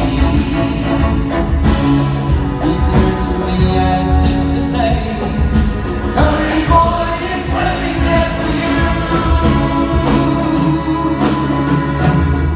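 A large choir singing with orchestra and band accompaniment, played live.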